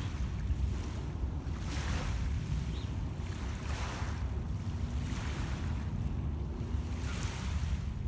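Small lake waves lapping and washing onto a pebble shore, swelling and falling back about four times, over a steady low rumble of wind on the microphone.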